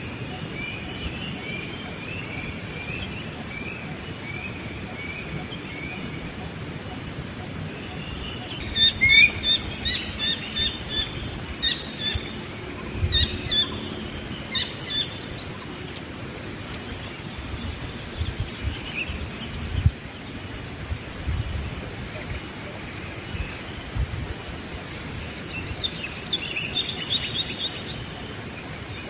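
Wild birds calling and chirping: a run of repeated notes at first, then clusters of sharp chirps about nine to fifteen seconds in and again near the end. Underneath is a steady, pulsing insect drone, and a higher insect whine that stops about nine seconds in, with occasional low thumps.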